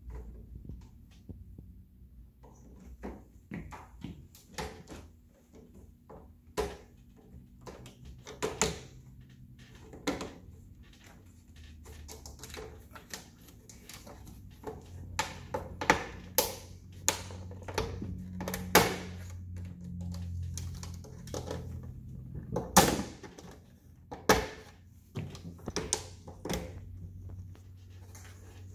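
Hard plastic playset pieces being handled and snapped into place: an irregular string of clicks and knocks, with a few louder snaps in the second half.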